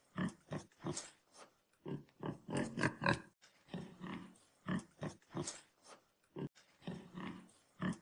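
Wild boar grunting: a run of short, low grunts, about two a second, with a denser, louder cluster around three seconds in.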